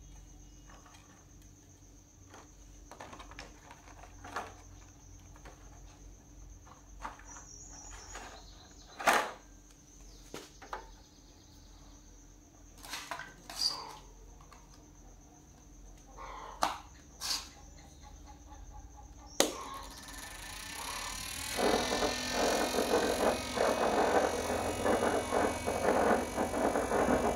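Light, scattered clicks and taps over a faint steady hum and a high whine. About two-thirds of the way through, a sharp click comes, and then music starts playing.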